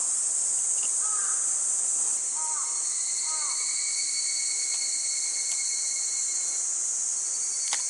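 Steady, high-pitched insect chorus, with a second insect's steady buzz joining about two seconds in. A few short chirps sound early on, and there is one sharp click near the end.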